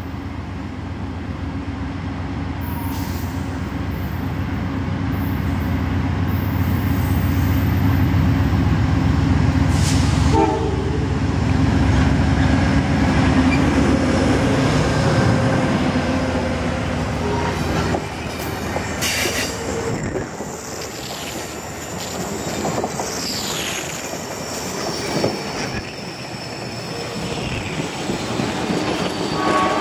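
A GE P42DC diesel locomotive approaches sounding its Nathan K5LA five-chime horn, and its engine and wheels build to a heavy rumble as it passes close by about a third of the way in. The passenger coaches then roll past with rail clatter and brief high wheel squeals.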